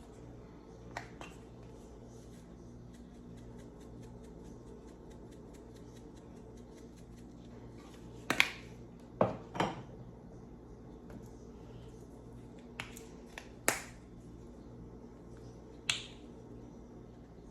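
Scattered sharp clicks and knocks of kitchenware being handled, the loudest few about eight to ten seconds in, over a steady low hum.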